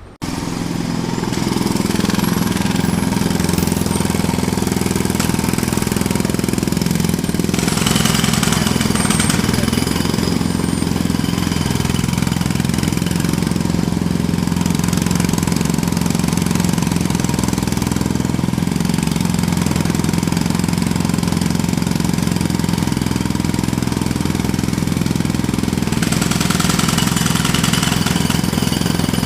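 Jackhammer hammering continuously, cutting in abruptly at the start. Its sharper, brighter clatter swells twice: about eight seconds in and again near the end.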